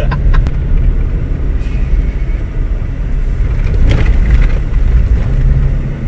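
Vehicle driving on a rough, broken road: a steady low rumble of engine and tyres.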